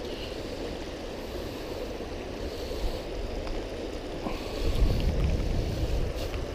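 Steady rush of shallow creek water running over a low weir and rocks, with wind rumble on the microphone that grows stronger about four and a half seconds in.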